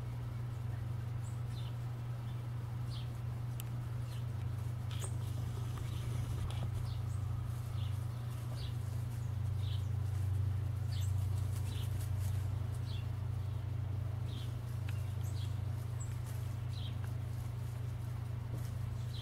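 Small birds chirping in the background: short, high chips about once a second, over a steady low hum.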